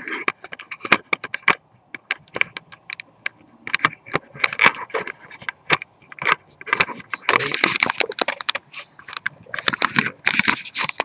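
Handling noise: fingers rubbing, scraping and knocking right at the recording phone's microphone, a dense run of irregular clicks and scrapes that thickens near the middle and again near the end.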